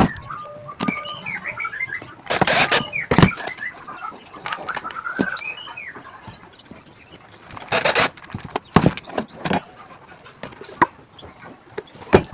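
Birds chirping in short, rising and falling calls, broken by several loud, short bursts of noise.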